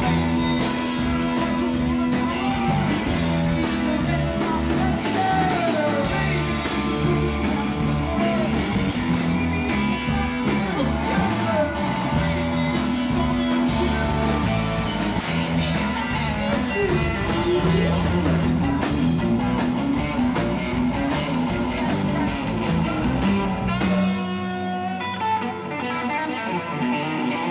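Live rock band playing, with electric guitars, bass guitar and drums. About three seconds before the end the drums and the deepest bass drop away, leaving guitar playing on.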